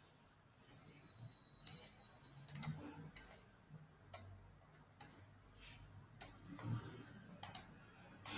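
Faint computer mouse clicks, single sharp clicks about a second apart with a quick double click about two and a half seconds in, and light shuffling of the hand at the desk.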